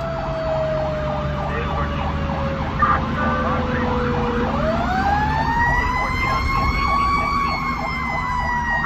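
Fire engine siren sounding while the truck runs: a long wail falls slowly, then winds back up about halfway through and holds high before easing down. A faster warbling siren tone and the truck's low engine rumble run underneath.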